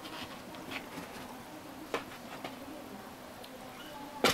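Kittens pawing and scratching at a large creased paper sign, giving scattered light taps and scratches, then a sharp, louder knock right at the end.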